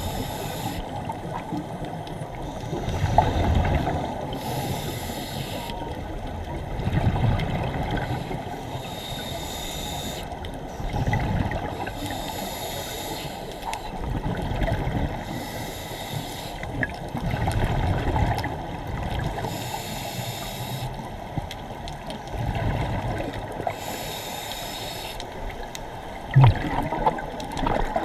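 Scuba diver breathing through a regulator underwater: a hiss on each inhale and a gurgling rush of exhaled bubbles about every four seconds, over a steady rush of water. A sharp knock near the end.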